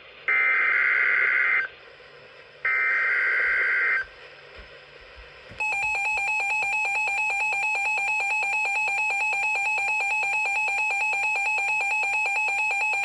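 Emergency Alert System signalling: two harsh bursts of SAME digital data, each just over a second long and about a second apart. About five and a half seconds in, the steady two-tone EAS attention signal starts and holds.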